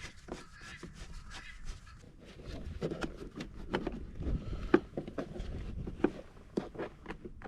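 Irregular clicks, taps and knocks of hands and tools on the plastic housing of an inverter generator while it is taken apart, screws being removed. The knocks come thickest in the middle and latter part.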